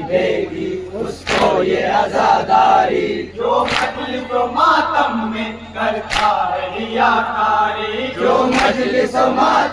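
Men's voices chanting a nauha in unison, with loud chest-beating strikes (matam) landing together four times, about every two and a half seconds.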